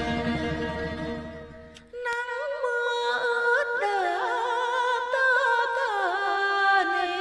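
Music: a phrase with a low bass part fades out, and about two seconds in a higher melody with a wavering, ornamented pitch comes in over sustained notes, without bass.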